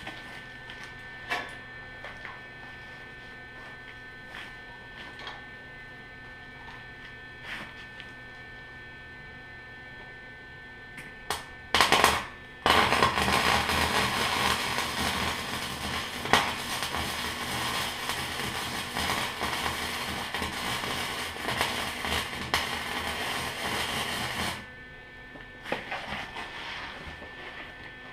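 Lincoln 180 wire-feed welder running 0.035 flux-core wire: low hum and a few clicks, then a short arc burst, like a tack, about twelve seconds in, followed by a steady crackling weld bead for about twelve seconds that cuts off sharply.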